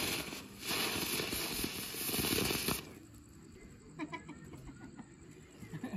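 A ground firework spraying sparks, hissing loudly for about three seconds with a brief dip near the start, then cutting off suddenly. A few faint short calls follow near the end.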